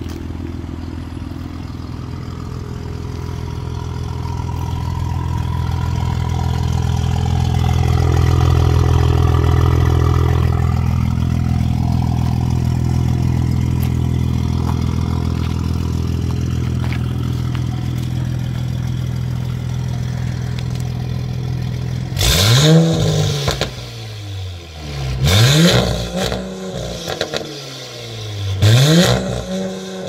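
2018 Audi S5 (B9) turbocharged V6 breathing through an FI Exhaust valved catback and downpipe, idling steadily for about twenty seconds. Then it is revved sharply three times, each rev rising quickly and falling back to idle.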